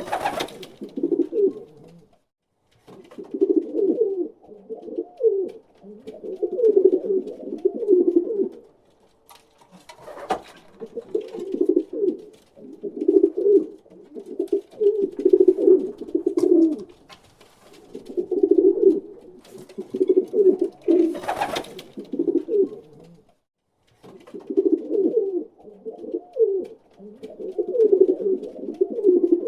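Pigeon cooing: low, rolling coos repeated in phrases of a few seconds with short pauses between them. A couple of brief sharp taps are heard along the way.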